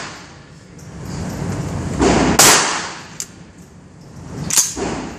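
Two gunshots about two seconds apart, each with a short reverberant tail in an indoor range, and a light click between them.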